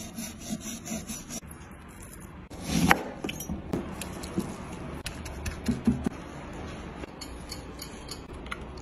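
Knife sawing through a shark fillet on a plastic cutting board, about four short strokes a second, then wet squelching and rubbing as a gloved hand works grated ginger over the fillets.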